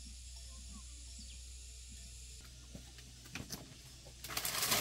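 Faint outdoor background, then a few light knocks and a short loud scraping rustle near the end as a woven bamboo door panel is handled.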